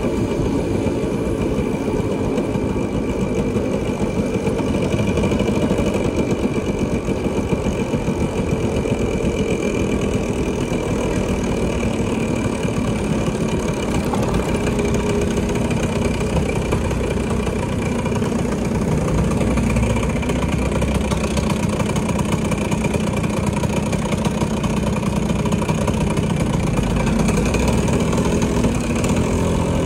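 A vehicle engine running steadily amid road and traffic noise.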